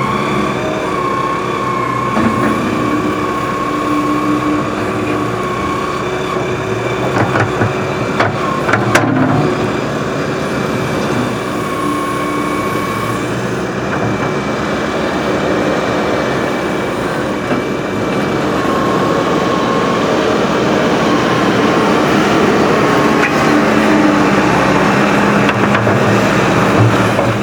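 Diesel engines of Hydrema 906D backhoe loaders running under load while digging and moving dirt, with a steady high whine that comes and goes over the engine hum. A few sharp knocks sound about seven to nine seconds in.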